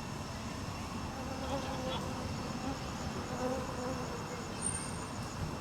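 An insect buzzing, its pitch wavering, over a steady low background rumble; a short, thin high tone sounds near the end.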